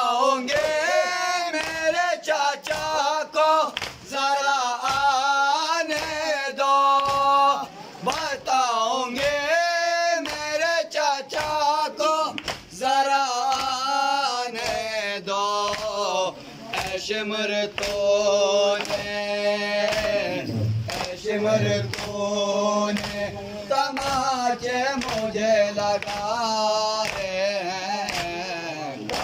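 A group of male voices chanting an Urdu noha, a Muharram lament, in chorus. A steady beat of hand strikes on chests (matam) keeps time throughout.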